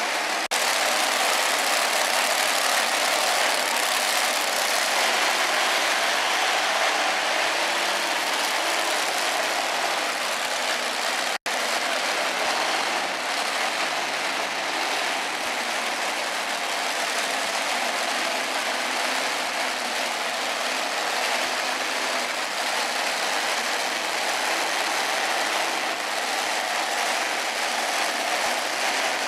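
Engines of modified tractor-pulling tractors running, a loud steady engine din with no let-up. The sound cuts out for an instant about eleven seconds in.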